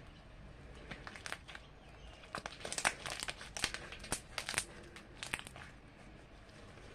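Sticky jelly slime being kneaded and stretched by hand as activator is worked into it, giving an irregular run of sharp clicks and crackly pops between about one and five and a half seconds in.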